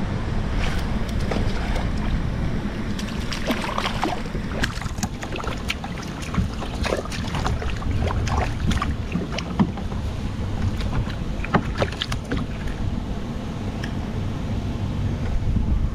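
Wind buffeting the microphone on a kayak out on open water, a steady low rumble, with scattered sharp clicks and taps of handling through the middle.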